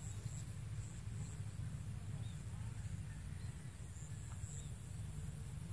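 Rural outdoor ambience: insects shrill steadily at a high pitch in a pulsing band, with a few faint bird chirps, over a low steady wind rumble on the microphone.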